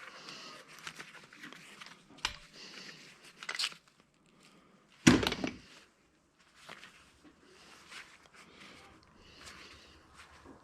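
Paintball markers being handled and taken apart: scattered clicks and rustling, with one loud knock about five seconds in.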